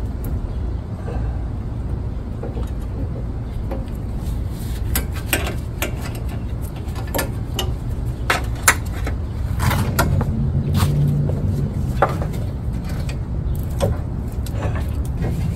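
Scattered metal clicks and knocks, mostly in the middle, as the CV axle of a 2006 Honda Odyssey is guided and wiggled into the transmission, over a steady low hum.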